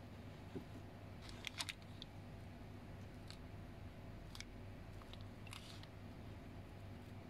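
Faint clicks and crinkles from handling small plastic gashapon keychain figures with ball chains and a clear plastic bag: a quick cluster about a second and a half in, then a few single clicks. A steady low hum runs underneath.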